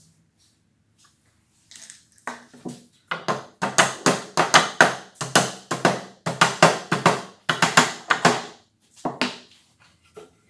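A wooden mallet knocking on the end of a solid-wood board, driving doweled boards together: a quick run of about four knocks a second, starting lightly about two seconds in, then louder, stopping about a second before the end.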